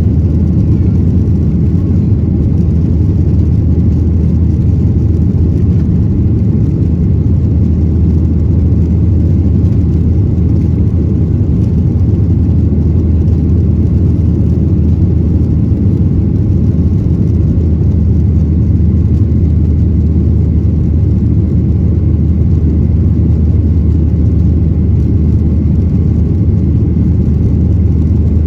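Steady low rumble of a Boeing 737-800's CFM56-7B jet engines running, heard from inside the passenger cabin.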